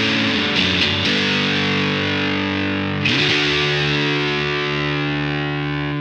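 Distorted electric guitar played through the Southampton Pedals Indie Dream, its fuzzy, saturated drive blended with reverb and delay. There are a few strummed chords in the first second, then about three seconds in a chord slides up in pitch and rings on.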